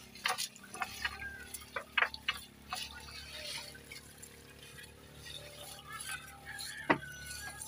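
Wet gill net being hauled aboard a small boat: water dripping and trickling off the mesh, with scattered light clicks and knocks of the net and its floats against the hull, and one sharper knock about seven seconds in.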